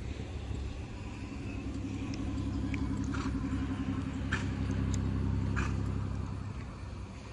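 A car passing on the road: its engine and tyre rumble swell to a peak about four to six seconds in and fade near the end. A few sharp hoof strikes on the dirt come from the loping horse.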